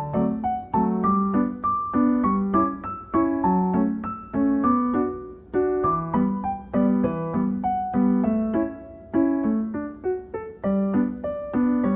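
Background music: a gentle piano melody of struck notes in a steady rhythm.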